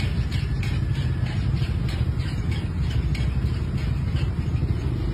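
Steady low rumble, with a rapid rattle of about four clicks a second over the first three seconds that then dies away.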